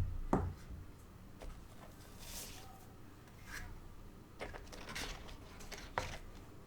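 Unboxing handling noises of a keyboard's packaging: a soft knock, a brief rustle of packaging, then a few light clicks and taps.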